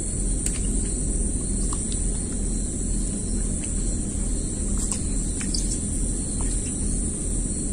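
Steady high-pitched insect chorus over a constant low rumble, with a few short clicks scattered through it.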